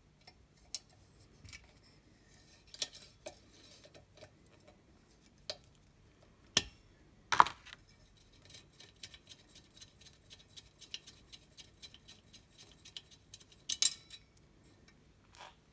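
Small metal clicks and clinks of a T25 Torx bit worked by hand in the screws of a chrome silencer's end plate as the screws are undone. A few sharper clinks near the middle and one near the end, with a run of faint quick ticks between.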